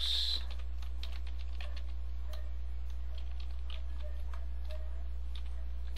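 Computer keyboard typing: irregular, scattered keystrokes over a steady low hum.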